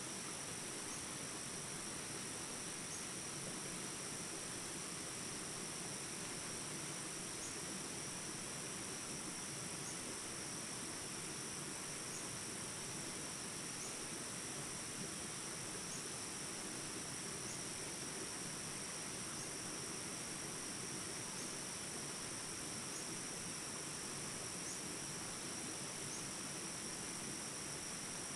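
Steady, high-pitched drone of an insect chorus, with a faint short chirp every second or two.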